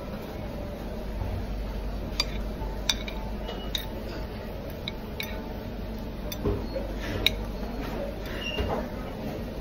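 Metal fork and spoon clinking and scraping against ceramic plates while eating, scattered sharp clicks over a steady low background noise.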